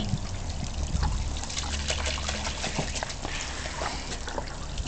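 Running water trickling and splashing as a Cairn terrier plays in it, with many small irregular splashes.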